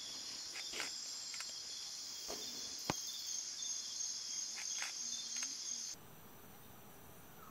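Steady high-pitched chorus of rainforest insects at night, with scattered clicks and one sharp click about three seconds in. About six seconds in the chorus cuts off abruptly to a much fainter, even ambience.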